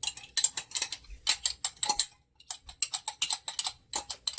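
A fast, irregular run of sharp clicks, several a second, pausing briefly a little after two seconds in.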